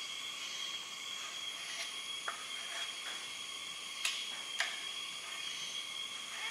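A few light clicks and taps from a thin wooden board being handled while wood glue is spread along its edge, over a steady high-pitched hiss with a constant thin tone.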